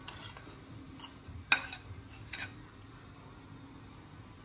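A steel spoon scraping and tapping against a ceramic bowl and a stainless steel mixing bowl as flour is emptied out. A few light clinks, the sharpest about a second and a half in.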